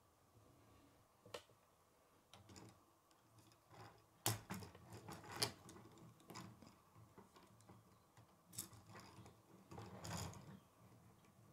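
K'nex plastic rods and connectors clicking and rattling as they are handled and snapped together, in scattered faint clicks with the sharpest snaps about four and five and a half seconds in.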